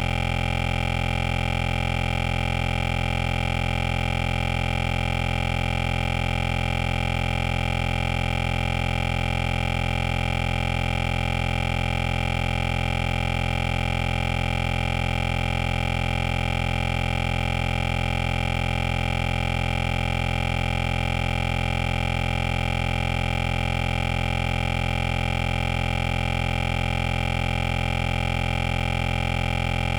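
A steady, unchanging hum made of several fixed tones, strongest in the bass, with no breaks or events.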